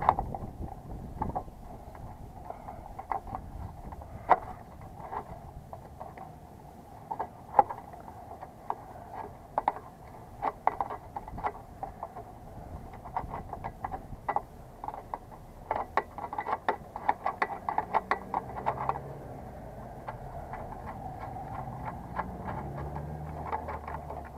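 Screwdriver clicking and scraping on the terminal screws and wires inside a rusted metal A/C disconnect box, in scattered sharp ticks, with a quick run of clicks about two-thirds of the way through.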